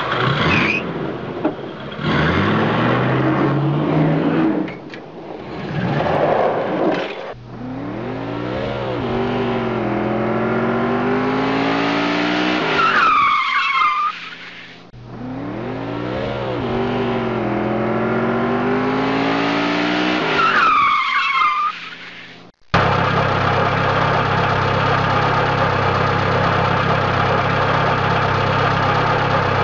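A car engine revving up and down with tyre squeals, the sound of a car drifting; the same stretch of revving, ending in a squeal, plays twice. About three quarters of the way through it cuts off abruptly and a steady, even engine sound takes over.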